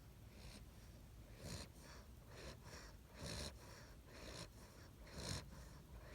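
Seven-week-old Great Dane puppy snoring in its sleep: faint snores about every two seconds with softer breaths between them, the loudest near the end.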